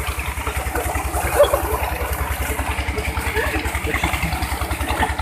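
Tubewell pump engine running steadily with a rapid, even low beat, with water gushing from the outlet pipe and splashing in the tank.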